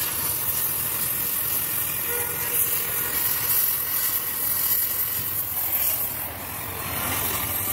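Gas welding torch flame hissing steadily, with a low rumble underneath.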